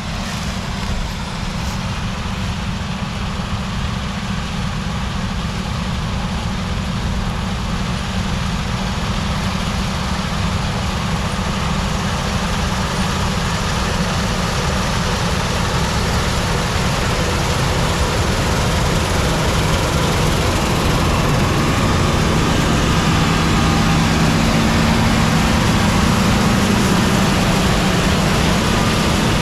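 Combine harvester with a draper head running while harvesting soybeans, a steady engine and machine noise that grows gradually louder as it approaches.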